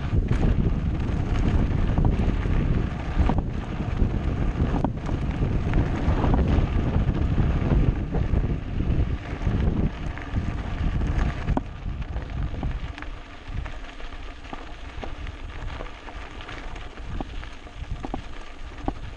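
Mountain bike running downhill on a rough track: wind rushing over a GoPro microphone, with tyre rumble and frame rattle. The rush eases about twelve seconds in, leaving quieter rolling and scattered rattles.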